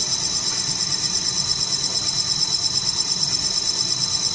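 Snack pellet production line machinery running steadily, a continuous mechanical hum and high hiss with a rapid, even pulse.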